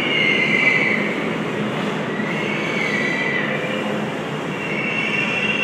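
New York City subway train running in an underground station: a steady rumble of wheels on rail with a high-pitched squeal that wavers and glides in pitch, dipping twice and rising again near the end.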